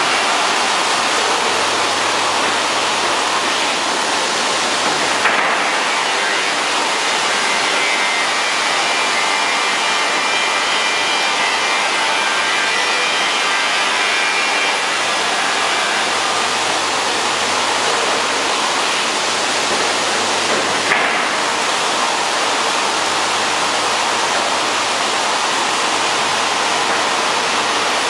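Industrial wide-belt panel sanding machine running, a steady loud rushing noise of abrasive on board, with a brief knock about five seconds in and another about sixteen seconds later.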